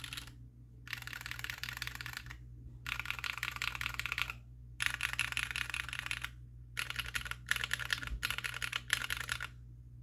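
Fast typing on a custom mechanical keyboard with SP-Star Meteor Orange tactile switches on an aluminum plate and GMK keycaps: rather muted clacking in bursts of about a second and a half with short pauses between, the last few bursts shorter and quicker in succession.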